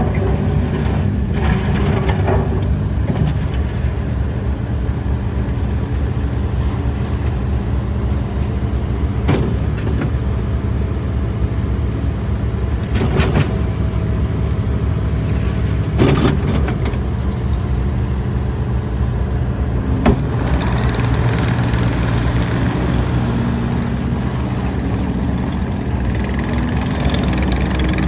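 Case TR310B skid steer loader's diesel engine running steadily, with a few sharp clanks. The engine gets louder and busier over the last several seconds.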